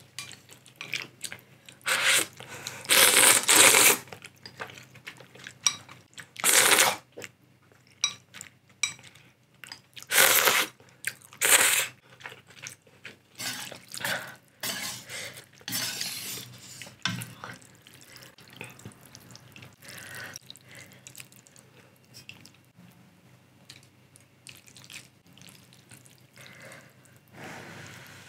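Close-miked slurping of ramyeon noodles: several loud slurps in the first half, then quieter eating sounds, with wooden chopsticks clinking against the pot and bowl.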